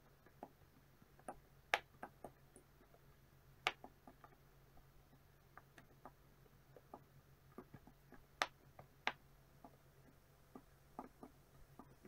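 Silicone bubbles of a pop-it fidget toy being pressed in with the fingertips, giving irregular soft pops, a few of them much louder than the rest.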